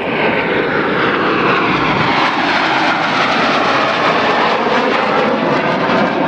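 BAE Hawk T1 jets of the Red Arrows flying by, their Adour turbofan engines making loud, steady jet noise. Over the first few seconds the pitch slides downward as the aircraft pass.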